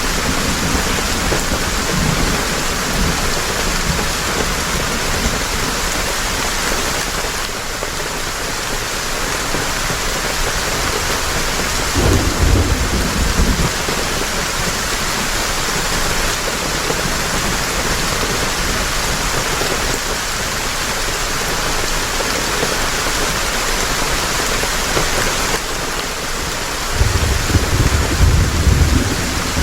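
Heavy rain falling steadily, with a low rumble of thunder about twelve seconds in and another near the end.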